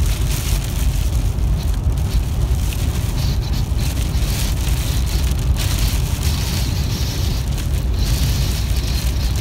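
Steady low road rumble inside a moving car at highway speed, with blowing rain hitting the windshield as an uneven hiss over the top.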